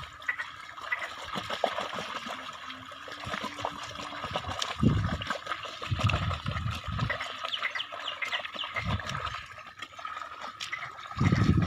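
Water and mud trickling and splashing as young bullocks drag a plough through a wet field, with irregular low thumps and small clicks from their steps and the plough.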